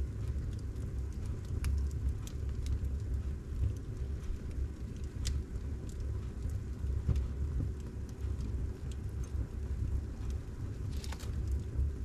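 Wood logs burning in a fireplace: a steady low rumble of the flames with scattered sharp crackles and pops, and a quick run of crackles near the end.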